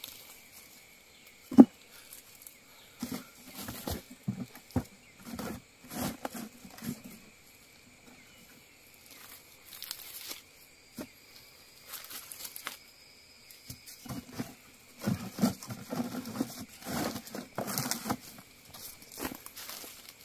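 Digging and foraging by hand in forest soil and leaf litter: irregular knocks, scrapes and crunchy rustling, with one sharp knock about a second and a half in and busier rustling near the end. A faint steady high whine sits underneath.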